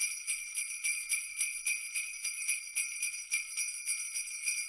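Sleigh bells jingling in a steady rhythm, about four shakes a second.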